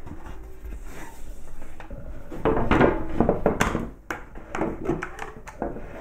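Wooden blocks and metal parts being handled and set down on a wooden workbench: irregular knocks, clatter and scraping, busiest from about two and a half to four seconds in.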